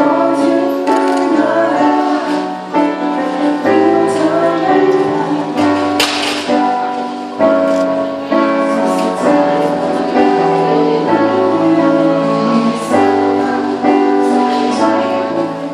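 Live band playing a pop-rock song through a PA: a male vocalist singing over electric guitars, keyboard and a moving bass line. A cymbal crash comes about six seconds in.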